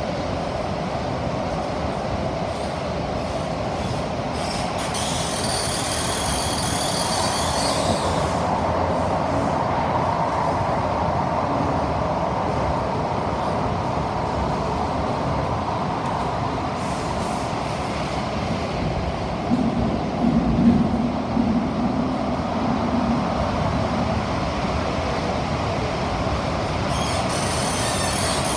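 SMRT CT251 metro train running underground, heard from inside the car: a steady rumble of wheels on rail. A high-pitched squeal from the wheels rises over it for about three seconds some five seconds in and comes back near the end.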